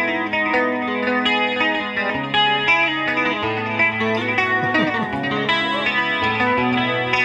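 Electric guitar played through an amplifier: a picked melodic line of overlapping, ringing notes, with the bass note changing every second or so.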